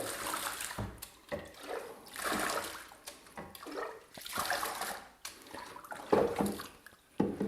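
Water splashing and trickling in short, irregular bursts as a hen is washed by hand in a tub of water.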